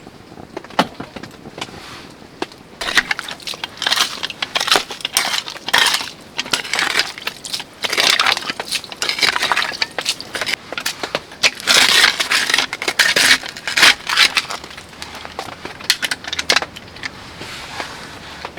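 Bursts of dense crackling and crunching, many sharp snaps close together, loudest in the middle and easing off near the end.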